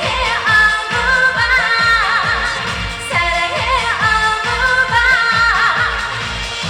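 A woman singing a trot song with vibrato over a backing track with a steady drum beat.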